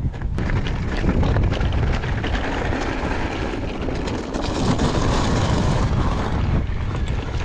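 Mountain biking ride noise from a Mondraker Crafty electric mountain bike on a rocky trail: a steady rush of wind over the camera microphone with tyre rumble and a run of small rattles and clicks from the bike. It gets louder just after the start and stays steady.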